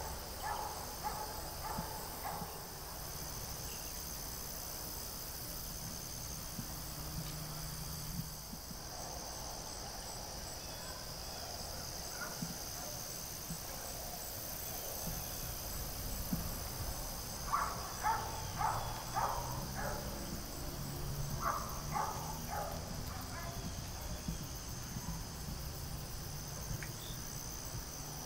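Crickets trilling steadily and high over a low rumble. Two short runs of louder chirps come a little past halfway.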